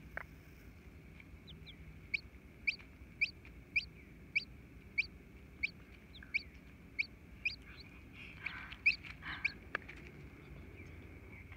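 Newly hatching chick peeping from the pipped egg: a run of about a dozen short, high, evenly spaced peeps, a little under two a second. It starts about two seconds in and stops before the end, with some soft scratchy rustling near the end.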